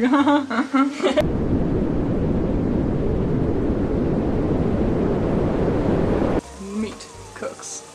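A loud, low rumbling noise that sets in about a second in and cuts off abruptly near the end: an added sound effect.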